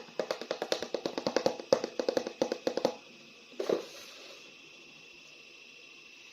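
A rapid run of light clicking taps, about eight to ten a second, stops about three seconds in. A single knock follows, then a faint steady hiss with a thin high tone.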